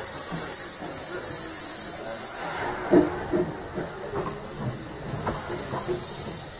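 Small narrow-gauge steam locomotive moving off, with steam hissing loudly from around its cylinders. The hiss drops away about two and a half seconds in, followed by a sharp knock and then a run of knocks and beats about twice a second as it rolls forward.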